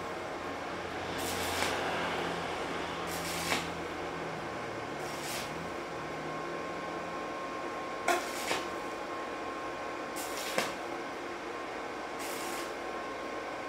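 Multipro 160A inverter welder in MMA (stick) mode with a 2 mm electrode, striking short arcs to tack 2 mm steel. About six brief crackling, hissing bursts come a second or two apart, some opening with a sharp tick, over a steady hum. The welder holds its arc at the lowest amp setting on a 4-ampere breaker without tripping it.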